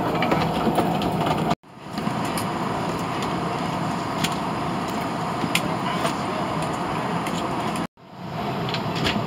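Steady cabin hum and air rush of an Airbus A220-300 parked at the gate, with faint scattered clicks. It cuts out abruptly twice and fades back in each time.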